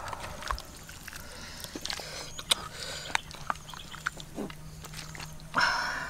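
Wooden spatula clicking and scraping against a metal wok as a pan of chicken is stirred, with a short, loud animal call near the end.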